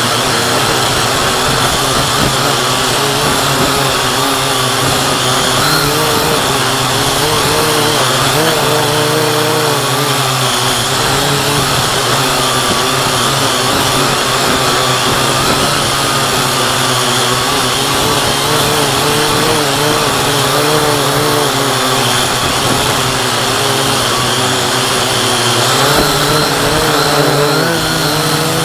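Syma X8C quadcopter's electric motors and propellers whining steadily in flight, recorded close by its onboard camera; the pitch wavers slightly as the throttle shifts.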